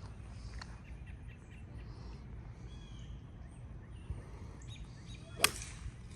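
Birds chirping over a steady low outdoor background, then a single sharp crack about five seconds in: a golf club striking the ball.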